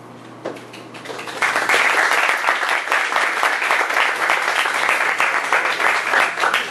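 Audience applauding: many hands clapping, starting about a second in and swelling quickly to a steady, dense applause.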